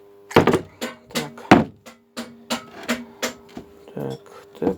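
Metal tools knocking and clinking against metal generator parts while sealant-coated bolts are worked loose: about a dozen sharp, irregular knocks, two of them louder, over a faint steady hum.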